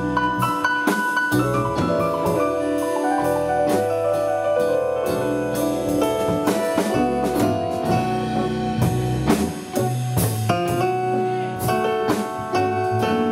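Live blues band playing an instrumental passage, with a drum kit keeping a steady beat under piano or keyboard.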